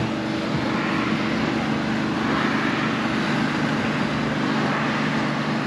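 Passing motor traffic: a steady low engine hum, with a rushing noise that swells and fades over the middle few seconds.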